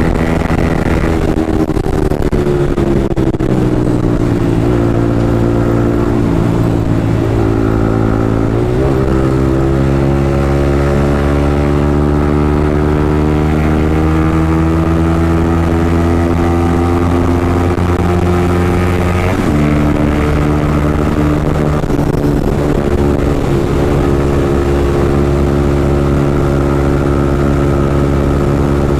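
Yamaha MT-15's single-cylinder engine through an Akrapovic aftermarket exhaust, running on the move. Its note drifts slowly up and down with speed, with two abrupt changes in pitch, about 9 and 19 seconds in.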